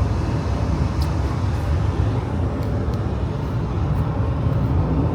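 Steady road and engine rumble inside a moving car's cabin, with tyre hiss above it.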